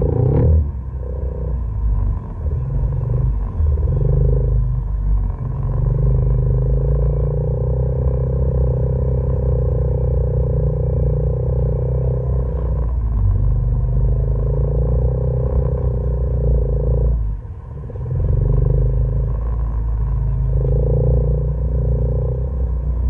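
Side-by-side UTV engine running under steady throttle on a rough dirt trail, with a low drone and its note shifting a little as the driver works the throttle. About three quarters of the way through, the engine drops off briefly, then picks back up.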